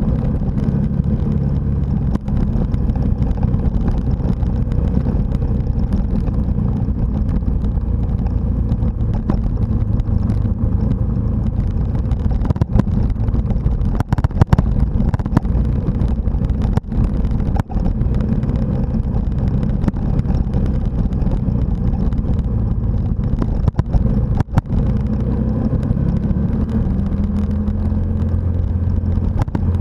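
Dirt bike engine heard from on board while riding a gravel road. It runs steadily, its pitch shifting with throttle and gears, and the sound dips briefly a few times.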